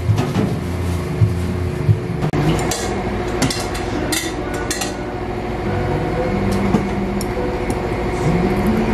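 Restaurant kitchen and counter clatter: sharp clinks and knocks of dishes and utensils, bunched in the middle, over a steady background hum.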